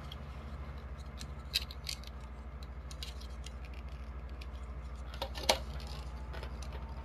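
Scattered small clicks and taps of screws and rifle parts being handled during assembly of an airsoft rifle, the sharpest about a second and a half in and again near five and a half seconds. Under them a fan runs with a steady, quickly pulsing low hum.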